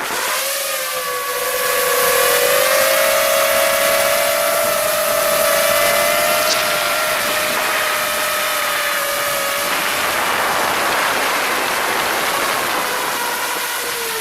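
FPV drone's electric motors and propellers whining at a steady, high pitch over a hiss of air. The pitch climbs over the first two seconds as the throttle comes up, holds, and sinks a little near the end.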